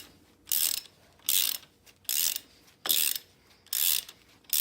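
Socket ratchet wrench being worked back and forth to back out a brake caliper bolt on an ATV front hub: a quick run of ratcheting clicks on each stroke, about six strokes at a steady pace of roughly one and a half a second.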